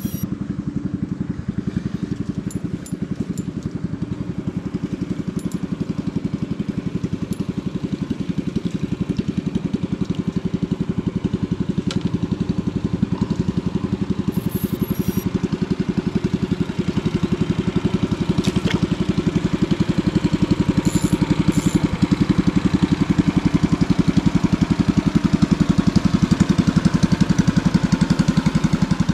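A small engine running steadily at an even speed, with a fast, regular putter.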